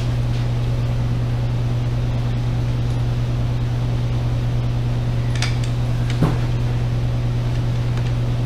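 Steady low electric hum, with two small clicks of a hand tool a little past the middle as the clamp screws on the carburetor intake boots are tightened.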